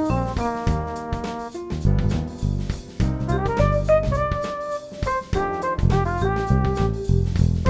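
Background music: an instrumental jazz-style track with drum kit, piano and brass, carrying a steady beat.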